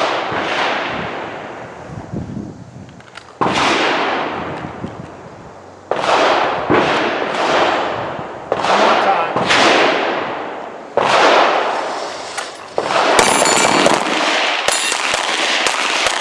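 Handgun gunfire from several shooters: a dozen or so shots at irregular spacing, some in quick runs, each trailing off in a long echo.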